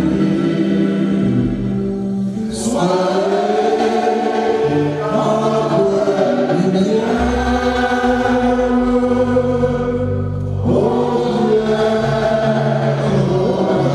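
Church choir and congregation singing a hymn, led by singers on microphones, with electronic keyboard accompaniment holding long low notes. The sung phrases break briefly about two and a half seconds in and again near ten seconds.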